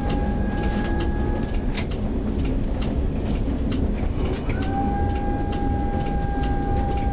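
Tram running on rails, heard from the driver's cab: a steady rumble with many sharp clicks from rail joints and points. A high squeal from the wheels in the curve fades out about a second and a half in and comes back, rising slightly, about four and a half seconds in.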